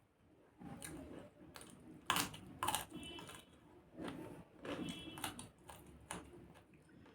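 Close-up eating sounds: a person chewing chicken samosa, with irregular sharp clicks and smacks, the loudest about two seconds in.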